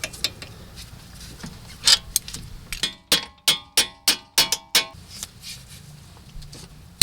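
Sharp metal-on-metal taps on the strut's lower mounting bolt as it is worked into the bolt holes: one tap about two seconds in, then a quick run of about seven taps, several a second, each ringing briefly.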